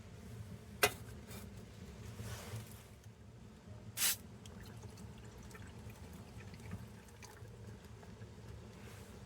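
A sharp click, then a short stretch of liquid being poured, over a steady low background hum; a brief louder burst of noise comes about four seconds in.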